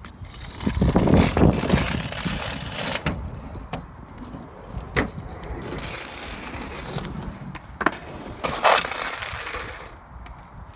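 Small hard wheels rolling fast over concrete in three runs of rushing, rattling noise, with sharp clacks and knocks of plastic striking the ground between them.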